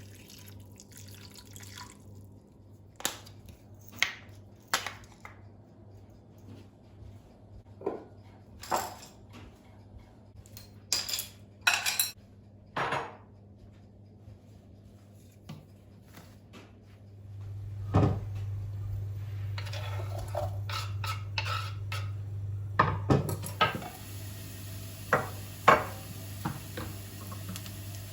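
Dishes and cutlery clinking and knocking in scattered strokes, a few of them sharp. A little over halfway through, a steady low hum starts and runs under the clinks.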